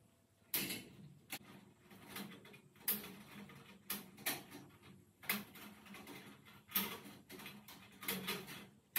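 Pliers clicking and snipping at the wiring of an overhead fluorescent light fixture as its ballast is being taken out: about eight sharp, irregularly spaced clicks with faint rustling between them.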